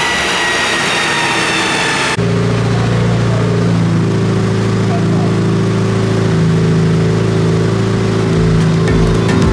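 Turbocharged Honda Civic engine on a chassis dyno winding down after a full-throttle pull, its pitch falling, until a sudden cut about two seconds in. Then steady sustained music tones, with a regular beat starting near the end.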